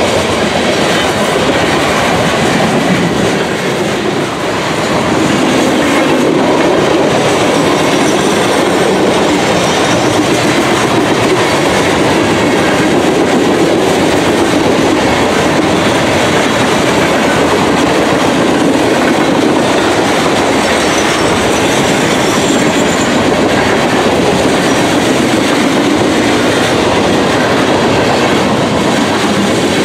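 Freight train cars rolling past close by: steady loud wheel and rail noise with clickety-clack over the rail joints, dipping briefly about four seconds in.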